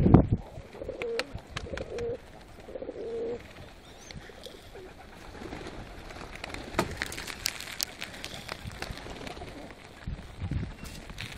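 Fancy domestic pigeons cooing, several short low coos in a row in the first few seconds, with scattered short clicks among the flock.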